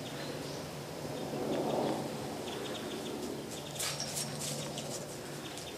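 Small birds chirping in short, high calls scattered throughout, with a louder low, rough sound about one and a half to two and a half seconds in.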